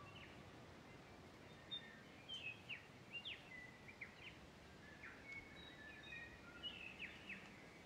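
Faint birds chirping: scattered short chirps and quick whistles over a low, steady hiss.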